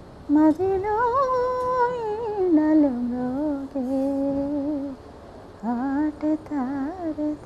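A woman's voice singing a slow, unaccompanied melody in long held notes with ornamented glides. It breaks off about five seconds in, then resumes with a few shorter notes.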